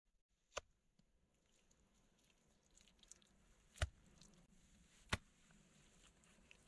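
Wet mud packed by hand into the gaps between the logs of a log cabin wall: faint squishing with three sharp slaps.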